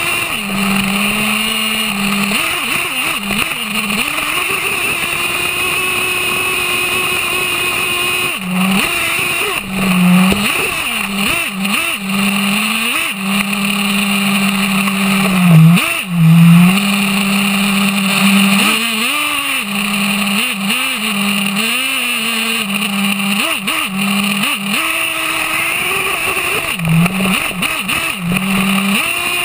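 HPI Savage X 4.6 nitro RC monster truck's small two-stroke glow engine, heard from a camera mounted on the truck, running hard on and off the throttle while it drives through sand. Its pitch swings up and down with the throttle, with a few louder surges around the middle.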